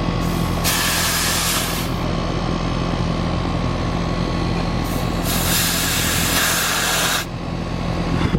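Air conditioner condensing unit running with a steady hum, with refrigerant hissing out of the gauge hoses twice, a short hiss then a longer one, as air is purged from the charging lines before charging. The sound cuts off abruptly at the end.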